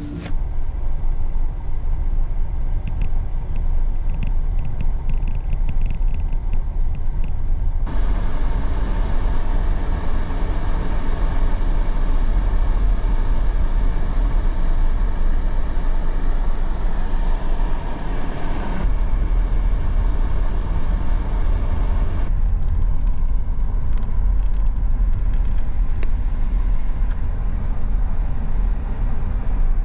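A car driving: a steady, loud low rumble of engine and road noise. A brighter hiss joins about eight seconds in and drops away again after about nineteen seconds.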